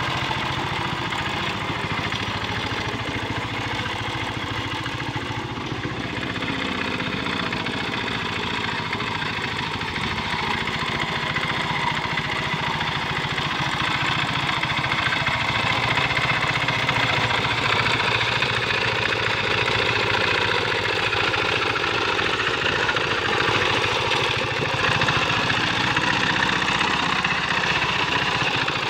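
Quick Capung Metal two-wheel hand tractor's small single-cylinder diesel engine running steadily under load while its cage wheels and harrow work through flooded paddy mud. It gets a little louder about halfway through.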